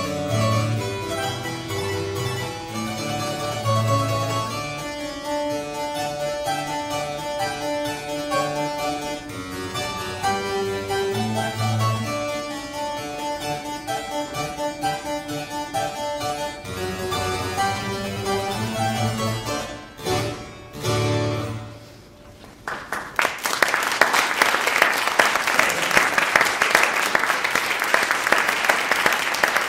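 Solo harpsichord playing a lively piece that ends with a few final chords about twenty seconds in, followed by an audience applauding, louder than the music.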